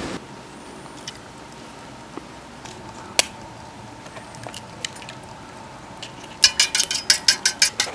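A few scattered clicks, then, after about six seconds, rhythmic scraping strokes at about five a second of stone on stone: chillies being ground with the roller on an ammi grinding stone.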